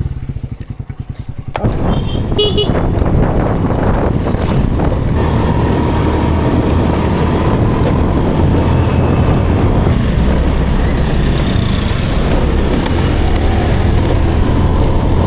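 Motor scooter engine running, first with a fast even putter, then a steady din as it rides off, with road and wind noise on the microphone. A short horn beep comes about two seconds in.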